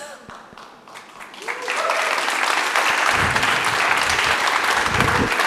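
Audience applause that starts about a second and a half in and quickly swells to full, steady clapping.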